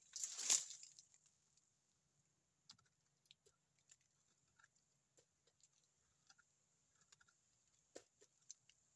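Teeth gnawing at a hard tree trunk's bark: scattered small crunches and clicks, after a short burst of noise in the first second.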